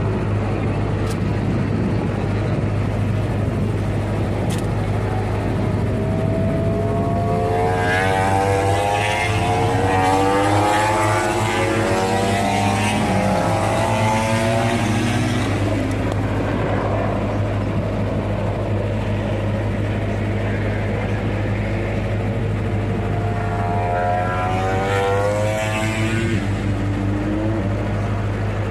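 Racing motorcycles passing on the circuit twice: a long pass in the first half and a shorter one near the end. Each time the engine note climbs as the bike accelerates, over a steady low rumble.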